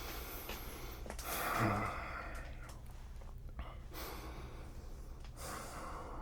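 A man breathing slowly close to the microphone, with a long sigh carrying a little voice about a second in and softer breaths near four and five and a half seconds.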